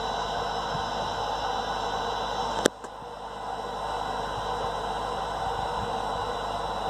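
Womb-sound white noise played to soothe a newborn: a steady whooshing hiss with a faint high whine. A sharp click about two and a half seconds in is followed by a brief dip before the hiss comes back.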